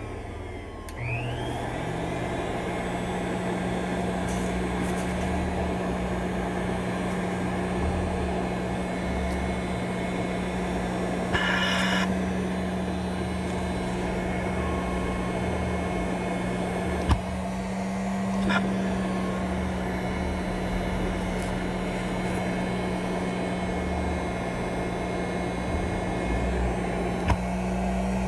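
Respironics CA-3000 Cough Assist's blower running with a steady pitched hum after spinning up about a second in. A brief hiss comes near the middle, with a few clicks later.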